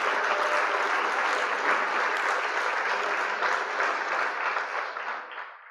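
Crowd applauding, a dense patter of many claps that fades out near the end.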